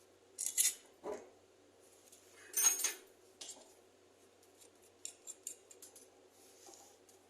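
Light metallic clicks and clinks of pliers and screws on the metal casing of a washing machine motor as its screws are loosened: a few separate clinks, a louder one near the middle, then a quick run of small ticks.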